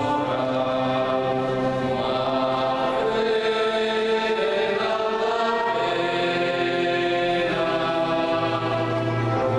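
Mixed parish choir singing a slow piece in long held chords, with a low male part beneath the upper voices.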